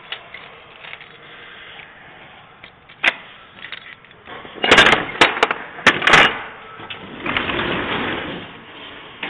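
Metal latch and handle of a box truck's rear cargo door clanking as the door is unlatched: a single click, then a quick cluster of loud metallic bangs, followed by a longer rattle as the door opens.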